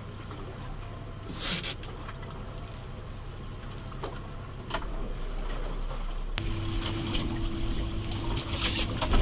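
Boat engine idling with a steady low hum, water sloshing against the hull and a couple of brief knocks; about six seconds in the hum grows louder and a steady higher tone joins it.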